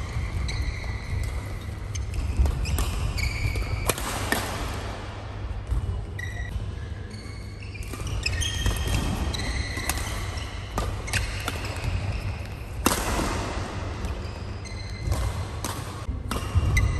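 Badminton rally: sharp racket hits on the shuttlecock every second or two and many short high squeaks of court shoes on the mat, over a steady low hum.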